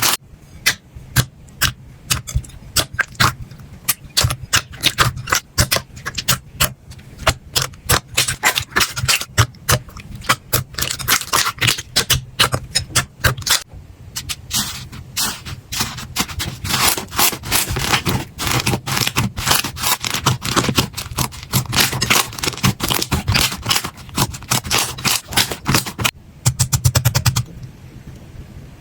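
Slime being squeezed and pressed by hand close to the microphone: a dense, irregular run of crackling clicks and pops. It thickens briefly and then stops shortly before the end.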